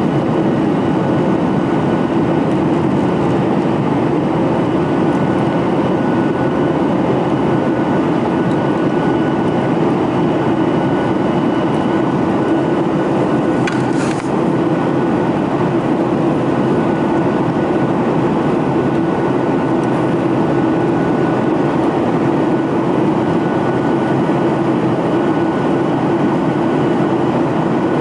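Steady drone of a Boeing 737-800's CFM56 jet engines, a dense rushing noise with a few steady tones over it, holding one level. There is a short click about fourteen seconds in.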